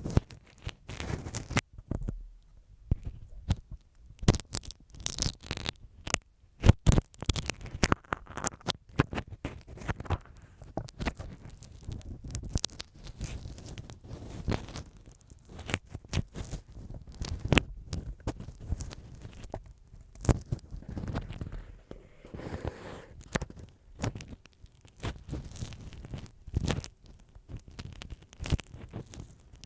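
An ear pick scraping and tapping on masking tape stuck over a TASCAM DR-07 recorder's microphones. It gives close, irregular scratches and sharp clicks.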